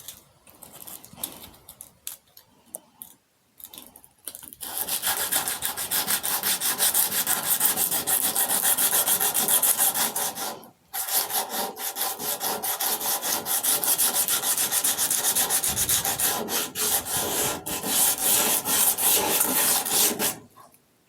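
Sanding paint off a 1971 Ford F-250's steel cab: a steady scratchy rubbing in quick, even strokes. It starts about four seconds in after a few handling clicks, breaks off briefly around the middle, and stops near the end.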